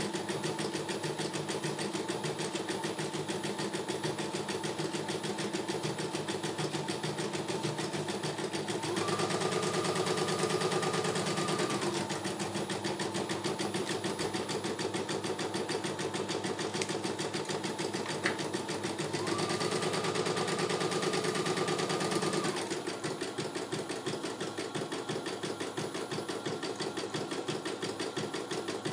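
CNY E900 computerized embroidery machine stitching out a design, the needle running in a rapid, steady rhythm. Twice, about nine and about nineteen seconds in, a higher whine joins it for about three seconds, then stops.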